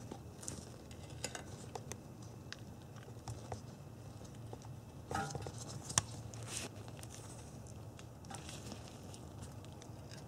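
Faint scattered clicks, clinks and short scrapes of large pliers working on a cast-iron brake caliper. There is a sharper click about six seconds in, with brief scraping just before and after, over a faint low hum.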